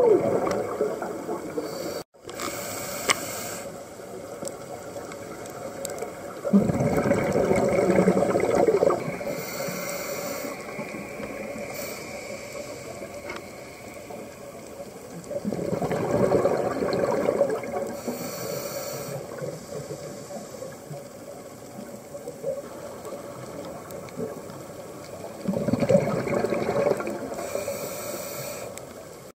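Scuba diver breathing through a regulator underwater: three exhalations, each a rush of bubbles about two seconds long, roughly nine seconds apart, each followed by the brief high hiss of an inhalation through the demand valve.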